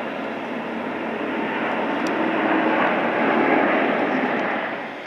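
Jet engine noise from a China Postal Airlines widebody cargo jet rolling on the runway, a dense rushing roar that swells over the first three seconds and drops off sharply near the end.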